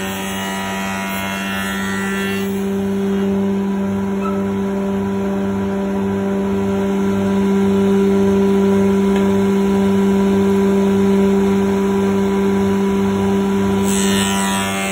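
iTech spindle moulder running with a steady hum while a timber door rail is fed past the cutter. It grows louder through the middle and changes in tone near the end.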